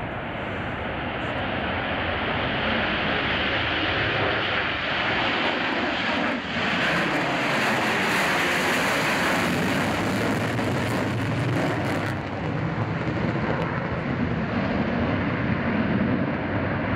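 Jet engines of a Tupolev Tu-160 bomber at full thrust with afterburners lit, a loud, steady jet noise with a slow sweeping tone as the aircraft passes. The noise shifts in character twice.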